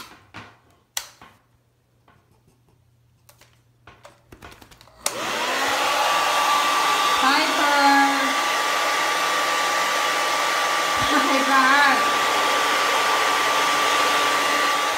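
A hair dryer switches on about five seconds in and runs steadily: a rush of air with a constant whine. A few light knocks and clicks come before it.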